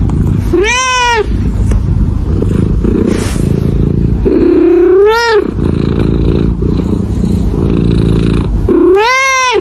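A domestic cat meowing three times, each call rising then falling in pitch, spaced about four seconds apart, over a steady low rumble.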